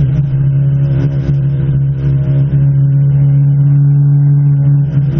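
Peugeot 205 T16's turbocharged four-cylinder engine running at a steady, even speed, heard from inside the car as it cruises along.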